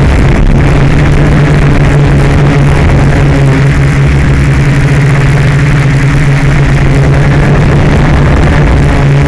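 Drone's electric motors and propellers running with a loud, steady hum, heard from the camera on board.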